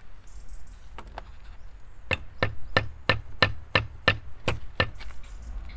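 A freshly laid concrete block being tapped down into its mortar bed to bring it level: two light taps about a second in, then a quick run of about nine sharp taps, roughly three a second.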